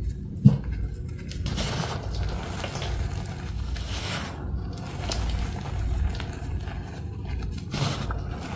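Hands squeezing and crumbling powdery gym chalk, soft crunching and scraping as clumps are packed and broken apart, with several louder crunches along the way. A brief low thump about half a second in.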